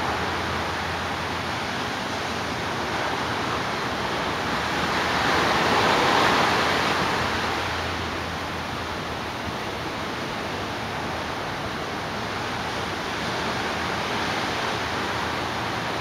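Ocean surf breaking on a sandy beach: a steady rush of waves that swells to its loudest about six seconds in, then eases off.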